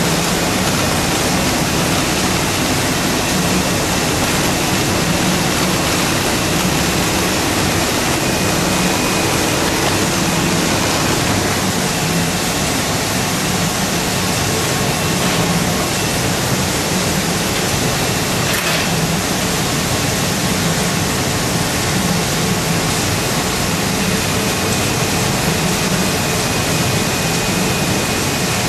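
Wohlenberg 137 paper-cutting line running: a loud, even hiss with a low hum underneath and a faint steady high whine.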